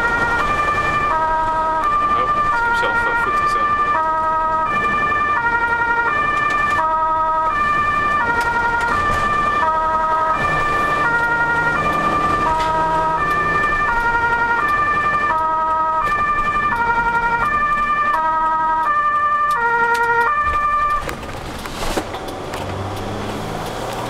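Ambulance two-tone siren heard from inside the cab, switching back and forth between a high and a low note, with engine and road noise underneath. The siren cuts off about 21 seconds in, leaving only the vehicle's engine and road noise.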